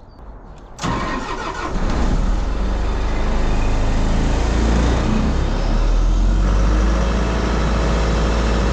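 The engine of a truck-mounted air compressor for a sandblasting rig starting up about a second in, then running loud and steady with a deep low drone.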